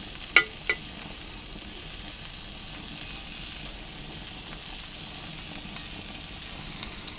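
Small bratwursts sizzling steadily in oil on a hot plancha griddle. Two short clicks come about half a second in.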